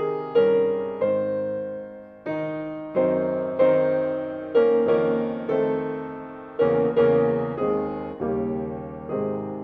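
Solo piano playing a series of chords, each struck sharply and left to ring and fade before the next.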